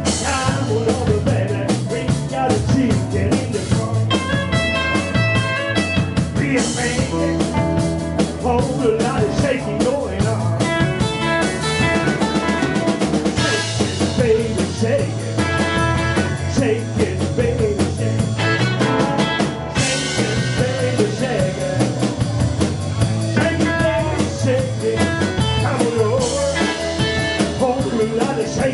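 Live rock and roll band playing an up-tempo number with electric guitars, electric bass and a drum kit keeping a steady beat, and a man singing lead.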